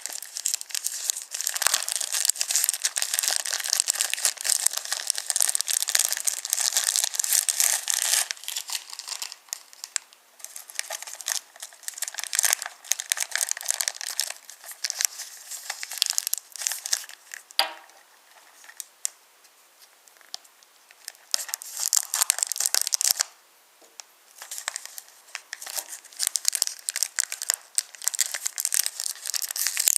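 Kmart wooden toy trains rolling along a wooden railway track: a dense, irregular clattering rattle of wooden wheels on the track. It drops away briefly a few times, with a short squeak in the middle.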